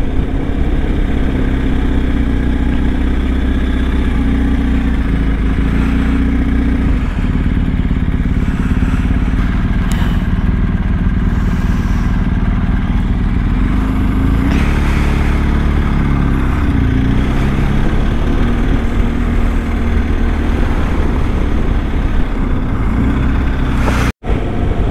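BMW R1250 GS boxer-twin motorcycle engine running under way on the road, its pitch shifting a few times as the revs change. Near the end there is a brief dropout.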